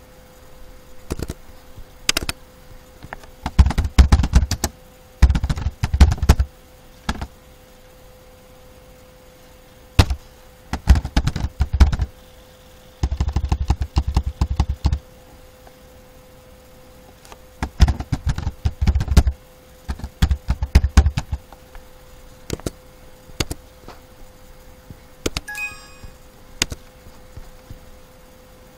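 Computer keyboard typing in about six short bursts of rapid keystrokes, with single clicks between them, over a faint steady hum.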